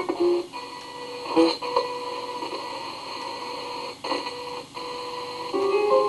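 Spirit box sweeping radio stations: steady tones over hiss, broken by short clicks every second or so, with brief snatches of broadcast sound at the start and near the end.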